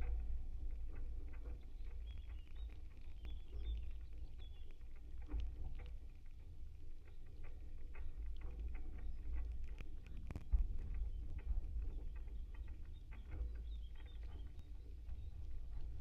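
Vibrations inside a wooden maypole heard through contact microphones, as the wind tugs its ribbons: a steady low rumble with scattered small creaks and ticks, and one sharper knock about ten seconds in.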